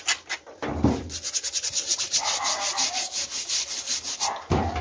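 Scouring pad scrubbing the armoured shell of an armadillo carcass under a running tap, in fast, even back-and-forth strokes of about six a second. The strokes pick up again about a second in after a short break.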